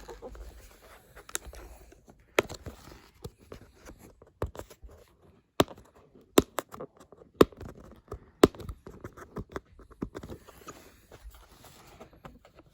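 Hands struggling to open a product's retail packaging: scratching and scraping with several sharp snaps and clicks, the loudest in the middle stretch.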